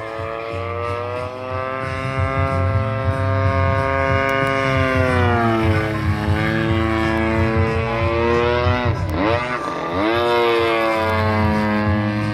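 Desert Aircraft DA-120 twin-cylinder two-stroke gas engine pulling a large RC aerobatic plane through manoeuvres, its pitch rising and falling with the throttle. About nine seconds in the pitch drops sharply and climbs straight back up.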